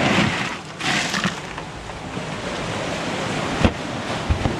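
Ice rattling and shifting in an Igloo cooler as a fish is pushed down under it, over steady wind noise on the microphone. About three and a half seconds in, a single sharp knock as the cooler lid is shut, followed by a couple of softer thumps.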